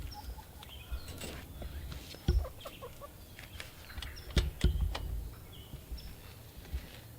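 Red sex-link hens clucking softly in short scattered calls, with a few dull knocks about two and a half and four and a half seconds in.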